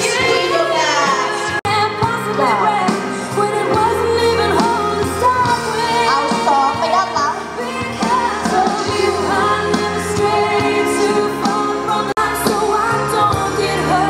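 Pop song with a singer, playing at a steady level; it drops out for an instant twice, about a second and a half in and near the end.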